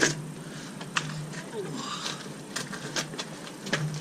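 A few separate clicks and knocks of metal parts being handled as a road wheel is fitted back onto a car hub.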